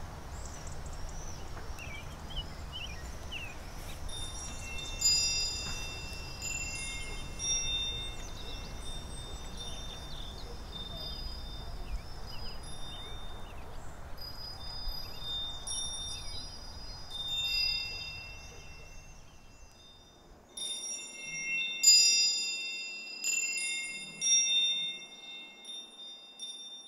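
Wind chimes ringing in the breeze, several high tones overlapping and dying away, with a few birds chirping early on over a low outdoor rumble. About twenty seconds in the outdoor background drops away and the chimes ring on alone, louder.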